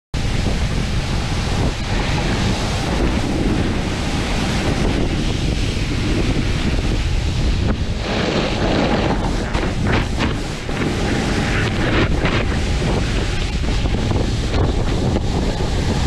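Wind buffeting the microphone of a board-mounted action camera while a snowboard slides through powder snow, a steady loud rush with shifting hiss from the snow.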